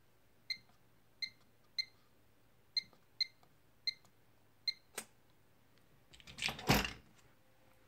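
Electronic keypad lock on a Hell's Canyon gun safe beeping seven times as a code is keyed in, then a single click about five seconds in. Near the end comes a louder rattling clunk as the spoked handle is turned to draw back the bolts.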